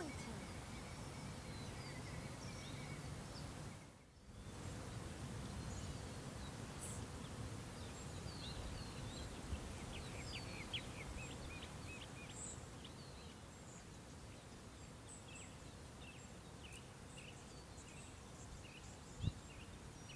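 Outdoor background: a steady low rumble with small birds chirping, the chirps thickest around the middle, and a single sharp click near the end.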